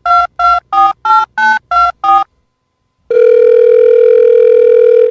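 Telephone keypad touch-tones: about seven quick two-note beeps, roughly three a second, as if a number were being dialled. After a short pause, a long steady phone tone starts about three seconds in.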